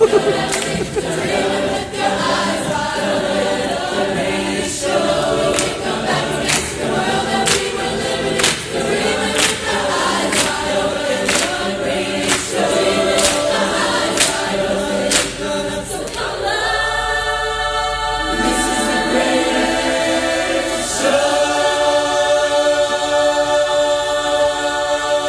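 Youth barbershop chorus singing a cappella in close harmony, with sharp beats about once a second under the moving chords. About two-thirds of the way through it settles into long sustained chords, the held final chords of the song.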